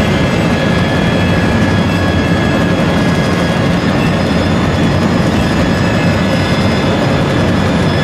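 Chinese traditional orchestra playing a loud, dense, noise-like sustained mass of sound, with a few high held tones threaded through it and no clear beat.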